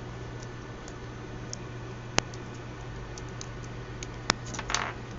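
A few small sharp clicks, two louder ones about two and four seconds in, then a brief scraping rustle, over a steady low electrical hum: small hand handling of wires and parts as a connection is put in place.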